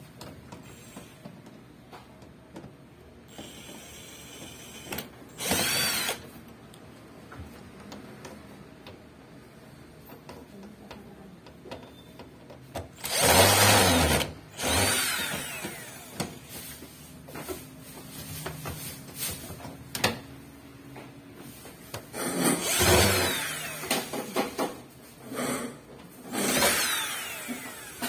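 Power drill run in several short bursts, its motor whining up to speed and winding down after each; the loudest burst comes about halfway through.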